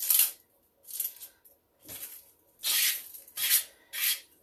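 Dry, papery onion skin crackling and tearing as it is pulled off an onion with a paring knife, in about six short rustles.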